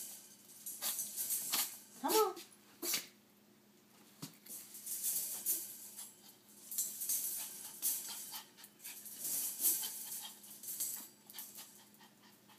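A dog scrabbling at the panels of a wire exercise pen as it tries to climb out, the metal wire rattling and clattering in bouts. A short whine about two seconds in.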